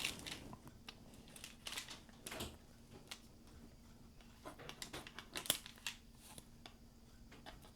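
Paper handling at a desk: faint rustles and scattered light ticks as stamps and stamp album pages are moved and shuffled, over a faint steady hum.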